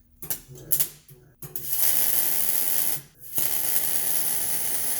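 Electric welding arc on an exhaust pipe: a few short sputtering starts as the arc fails to hold, then a steady crackling sizzle from about a second and a half in, broken briefly about three seconds in. The arc will not hold until a first tack bridges the gap between the pipe and the new resonator.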